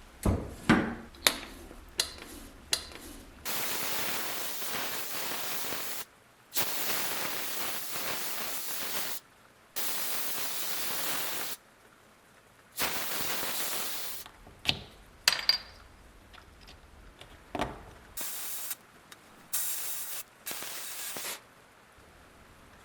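Sandblaster blasting fine glass beads at low air pressure, in repeated bursts of steady hiss two to three seconds long, with sharp clicks and knocks between the bursts.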